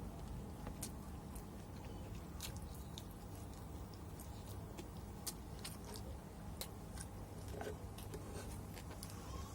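A person chewing and biting into chicken with sambal matah, close to the microphone: irregular sharp crunches and wet mouth clicks over a steady low hum.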